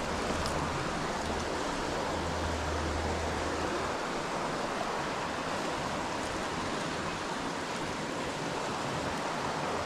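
Creek water running over rocks, a steady even rush with no breaks.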